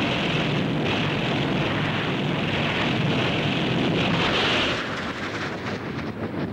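Jet aircraft engine noise, a steady loud roar with a hissing upper edge, easing off slightly about five seconds in.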